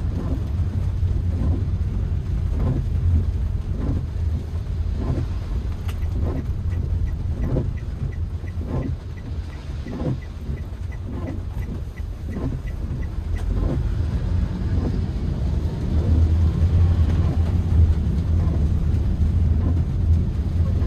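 Toyota Calya driving, heard from inside the cabin: a steady low rumble of engine and tyres that grows louder for the last few seconds. Through the first two thirds there is a regular ticking about one and a half times a second, and in the middle a run of quicker, fainter high ticks.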